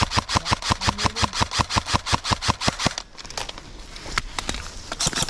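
Airsoft gun firing a fast, steady string of shots, about eight a second, that stops about three seconds in; a few single cracks follow near the end.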